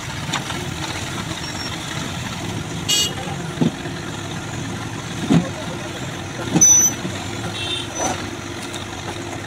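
JCB 3DX backhoe loader's diesel engine running steadily as its excavator arm pushes a concrete pipe section through muddy water. A vehicle horn toots briefly about three seconds in, and short high tones come again a little before the end.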